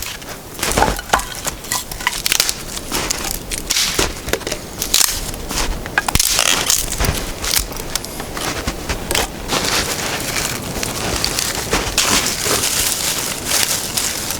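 Dry wood and twigs cracking and snapping: a dense, irregular run of sharp cracks.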